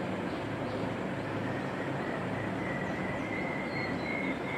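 Steady background hum and noise, with a faint high whine that grows slightly stronger later on.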